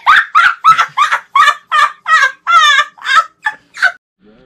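A person laughing loudly in a long cackling run of about a dozen "ha" pulses, trailing off near the end.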